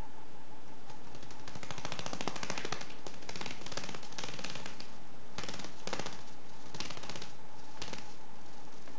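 Young common swift beating its wings rapidly in several bursts of fast, rattling flutters: the wing-strengthening exercises a nestling swift does before its first flight.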